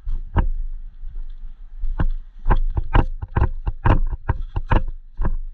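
A run of irregular dull thuds with rustling, sparse at first and then coming quickly, four or five a second, from about halfway through.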